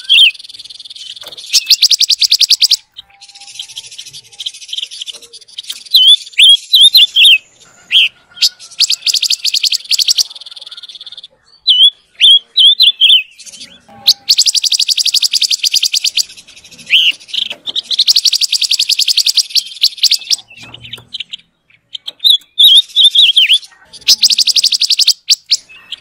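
Silver-eared mesia singing: quick runs of short rising whistled notes alternate with long, very rapid buzzy trills lasting one to two seconds, repeated several times.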